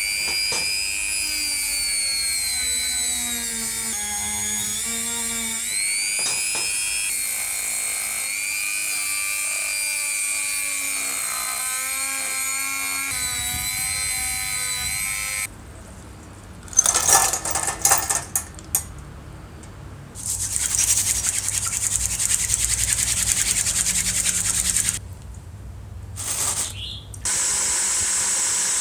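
Handheld rotary tool with a small sanding drum whining at high speed against cast aluminium, its pitch sagging and recovering as the drum is pressed in. About halfway through the whine gives way to a harsher grinding noise that starts and stops in short bursts.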